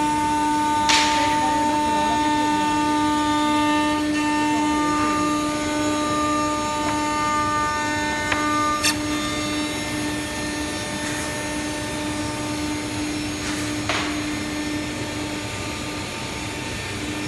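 CNC woodworking machining center running, its spindle giving a steady pitched whine as it works a wood panel, with a few short swooshes and a sharp click partway through.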